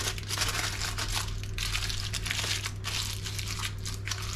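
Aluminium foil crinkling and crumpling as it is wrapped and pressed into shape by hand, an irregular run of crackles.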